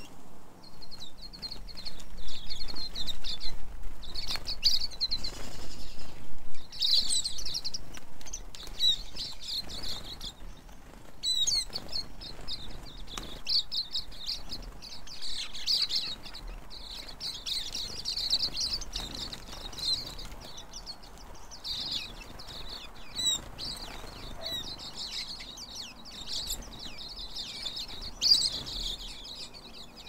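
A flock of silvereyes (tauhou) twittering, many thin high chirps overlapping without a break, with brief flutters of wings as the birds jostle.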